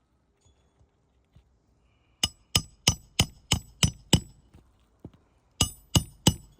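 Hammer blows on metal during shingle roof repair work: seven quick strikes at about three a second, a pause, then three more, each with a bright metallic ring.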